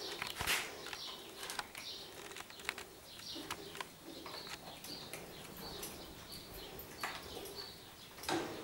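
A litter of Goldendoodle puppies feeding and moving about: small high squeaks and whines come again and again, with scattered sharp clicks and taps throughout.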